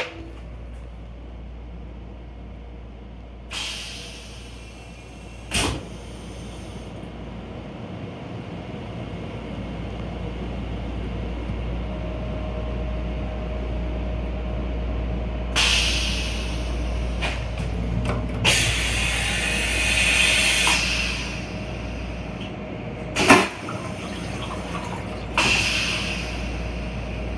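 Steady low hum inside a Metro-North M7 railcar's restroom. A few sharp clicks and several short hissing bursts sound over it, the longest and loudest over about two seconds past the middle.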